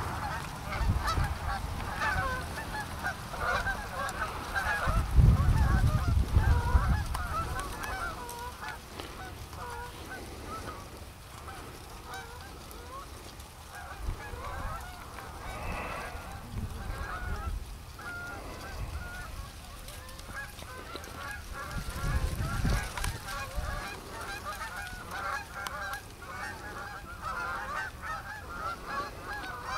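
A flock of Canada geese honking in flight: many short, overlapping calls all the way through. Two stretches of low rumble on the microphone break in, the louder about five seconds in and a shorter one past twenty seconds.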